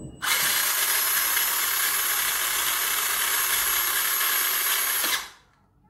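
RGT EX86100 1/10 crawler's brushed electric motor and metal-geared drivetrain running with the wheels spinning freely off the ground, a steady even whir for about five seconds that then winds down and stops.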